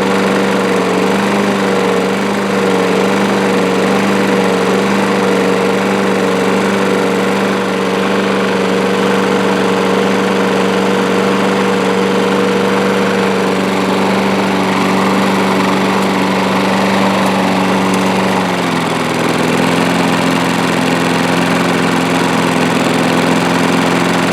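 Briggs & Stratton 125K02 single-cylinder lawn mower engine on a Troy-Bilt mower running steadily, its carburetor freshly cleaned and bowl gasket replaced. About three quarters of the way through, the engine speed drops a little and then holds at the lower note.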